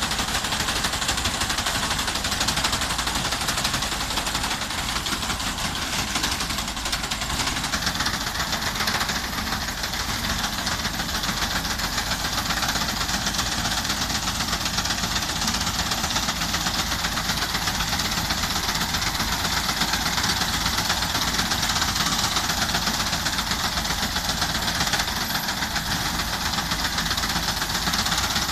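Tractor engine running steadily under load with a front-mounted reaper's cutter bar working through standing wheat.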